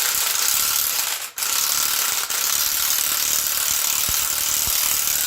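Impact wrench running, rattling steadily with a brief break about a second in, as it runs the bolts of a harmonic balancer puller into the balancer.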